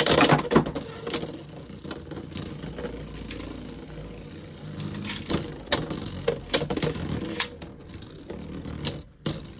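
Two Beyblade X spinning tops, Wizard Arrow against Wyvern Gale, spinning in a clear plastic stadium. It opens with a loud clatter in the first half second as they land and clash, then settles into a steady whir broken by sharp clicks each time the tops knock together.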